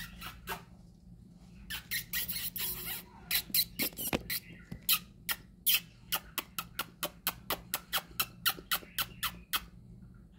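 Caged budgerigars making a run of sharp clicks and ticks, with a dense scratchy patch about two seconds in, then an even run of about four clicks a second that stops near the end.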